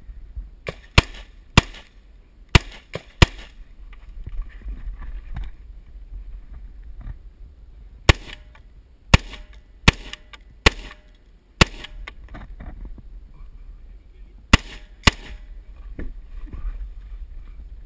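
H&K MR223 semi-automatic .223 rifle firing in quick strings: a run of about six shots, a pause of about four seconds, about six more shots, then a pair near the end.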